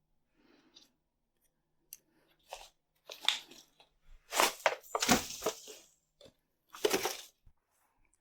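Morning glory vines and leaves crunching and tearing as they are handled, in irregular bursts, loudest in the middle and again near the end.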